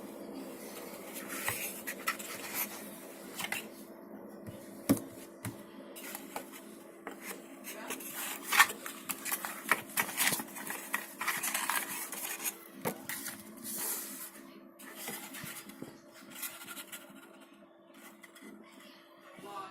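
Irregular scraping, rubbing and clicking of small objects being handled on a work surface, with one sharper click about eight seconds in, over a steady hum. The handling thins out near the end.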